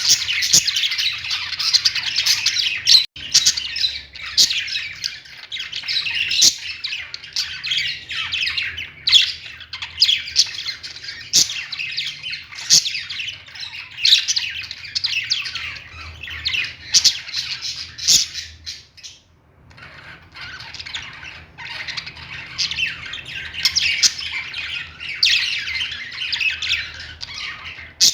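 Many birds squawking and chirping at once, a dense chatter of overlapping short calls that thins out briefly about two-thirds of the way through.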